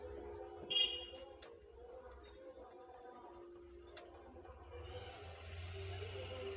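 Crickets chirping in a steady, fast rhythm of about three chirps a second, over a low electrical hum. About a second in there is a short clatter with a brief squeak, and a couple of faint clicks follow.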